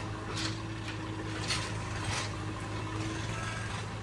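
JCB 3DX backhoe loader's diesel engine running steadily as the backhoe arm digs into soil, with a few short scraping noises.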